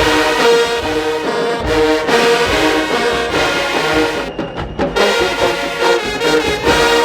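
HBCU show-style marching band playing: a full brass section with trombones and trumpets sounding held chords over marching percussion hits.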